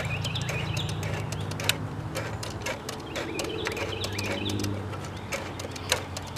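Light clicks and knocks of a metal radio chassis being handled and fitted back into its cabinet, the sharpest about two seconds in and again near the end. Birds chirp throughout over a steady low hum.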